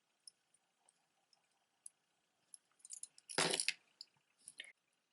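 Costume jewelry being handled: scattered light clicks and clinks of beads and metal pieces, with a louder jangle about three and a half seconds in and a smaller one about a second later.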